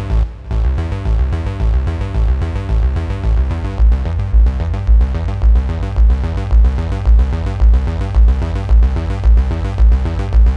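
Synth arpeggiator patch from the Ethera Soundscapes 2.0 Kontakt library, played from a keyboard: a fast sixteenth-note arpeggiated chord pattern over a deep pulse about twice a second. The pulse grows stronger a few seconds in.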